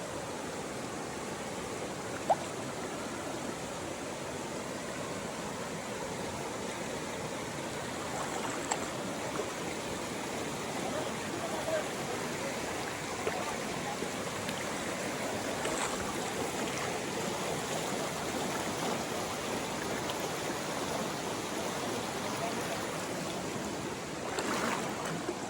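A small forest stream running with a steady rush of water. A single sharp click sounds about two seconds in, and a few faint ticks follow.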